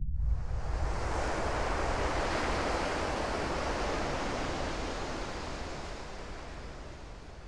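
A steady rush of wind and surf that sets in suddenly, then fades slowly away over the last few seconds.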